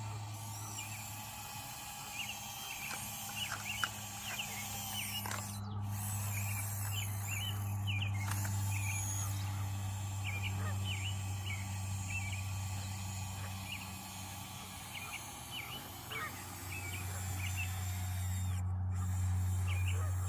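Electric motor of an RC model CAT excavator humming steadily at a low pitch, growing louder for stretches while it works. Birds chirp throughout in many short high calls.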